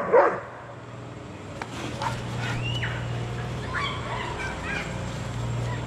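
A young German Shepherd barks loudly at the very start, then falls quiet while birds call with a few short whistled, chirping notes over a steady low hum.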